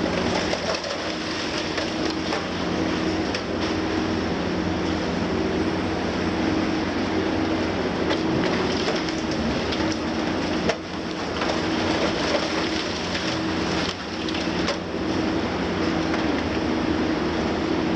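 Liebherr 954 high-reach demolition excavator at work: its six-cylinder diesel engine drones steadily under hydraulic load, with scattered cracks and crunches of concrete breaking in the crusher jaws.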